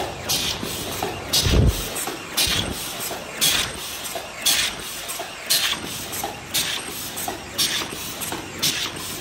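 MG-HC60 double-wall paper cup machine running, cycling with a short hissing clatter about once a second and smaller ones in between. A dull thump about one and a half seconds in.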